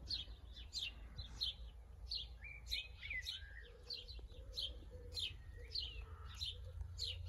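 Small birds chirping in a quick, irregular run of short falling chirps, with a few whistled notes near the middle. A steady low rumble sits underneath.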